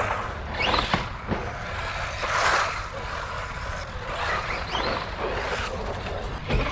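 Small electric RC buggy driving in short spurts: its motor whines up in pitch with each burst of throttle over the scrub of its tyres on concrete.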